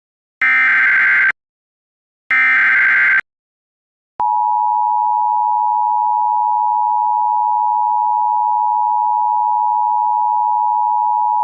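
Emergency Alert System SAME header: two rapid warbling data bursts about a second each, a second apart. About four seconds in, the steady two-tone EAS attention signal starts, sounding the start of a new alert.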